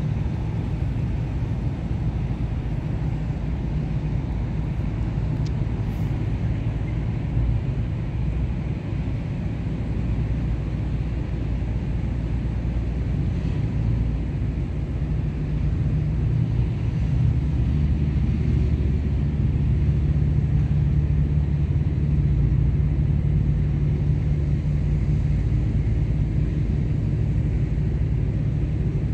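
Low, steady engine rumble with a deep constant hum from a large cargo ship being towed by a tug; it grows a little louder about two-thirds of the way through.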